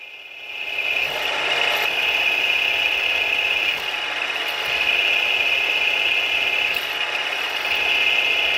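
Warco milling machine running while a 4.2 mm twist drill bores into a steel block, a steady drilling sound with a strong high-pitched whine. It builds up over the first second.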